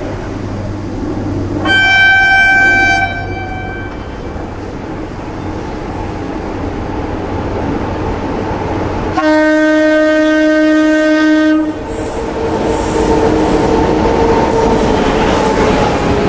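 Indian Railways WAP-7 electric locomotive sounding its dual-tone horn twice: a short higher-pitched blast about two seconds in, then a longer, louder, lower-pitched blast about nine seconds in. The train then passes with clickety-clack wheel noise and a steady whine.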